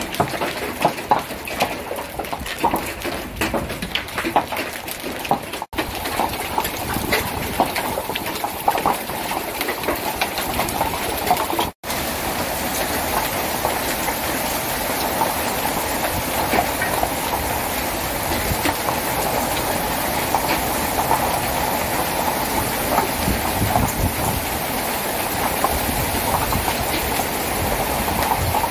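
Large hailstones pelting a garden, striking grass, stone paving and a wooden deck. It starts as scattered separate clicks and taps, then after about twelve seconds turns into a dense, steady clatter of heavy hail, loud enough that people thought car windows would break.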